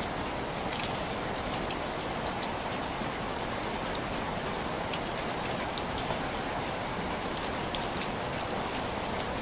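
Steady rain on window glass, a continuous patter with scattered individual drops tapping sharply at irregular moments.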